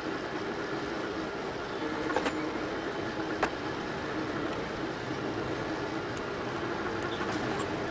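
Delta 3D printer running mid-print: stepper motors and cooling fan give a steady whirring hum with a few held tones, broken by two sharp ticks about two and three and a half seconds in.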